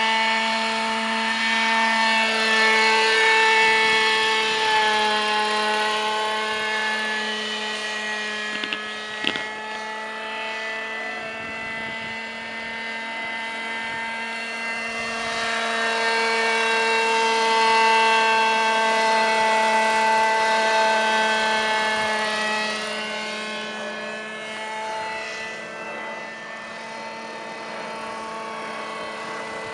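Petrol engine and rotors of a Vario radio-controlled scale Robinson R22 helicopter in flight: a steady, pitched engine-and-rotor drone that drifts slightly up and down in pitch and swells and fades in loudness as the helicopter moves about. A brief click about nine seconds in.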